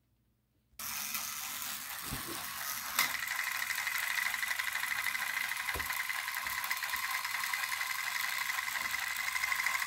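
Battery-powered motorized toy train engine running, a steady whirring gear whine that starts abruptly about a second in, with a sharp click and a few soft thumps.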